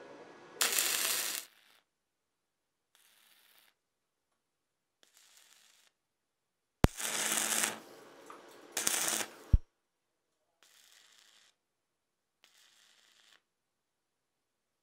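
Stick-welding arc crackling in short bursts as tack welds join thin steel strips: seven separate bursts, the loudest about a second in and twice between seven and ten seconds in, with fainter ones between.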